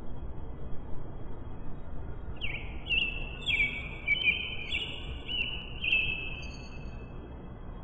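A wild bird singing a quick run of short, repeated, slightly falling notes, from about two and a half seconds in to past six seconds, over a steady low background rumble.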